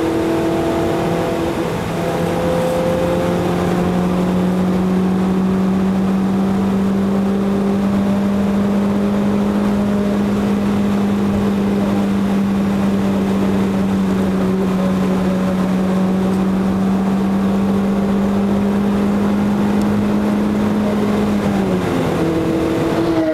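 Renault Clio's engine heard from inside the cabin: the engine note drops about a second and a half in, as at a gear change, then climbs slowly and steadily for most of the time. Near the end the revs fall away again. Wind and tyre noise run underneath.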